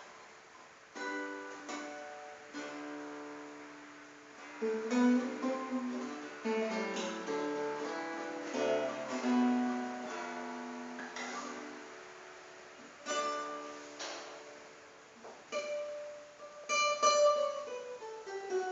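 Solo acoustic guitar playing a choro melody: single plucked notes and chords that ring and fade, starting about a second in.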